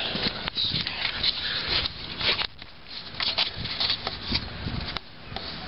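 Irregular rustling and scraping with soft clicks: handling noise from the camera and clothing as it is moved down to the truck's underside. No engine is running.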